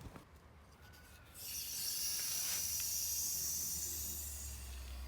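Steady high hiss of water rushing through the pipe as the mains supply is turned back on to test a freshly soldered copper repair, easing off near the end.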